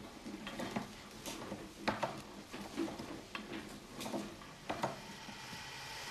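Irregular metallic clinks and knocks of tin cans being handled at a hand-cranked can-sealing machine. Near the end a steady hum starts.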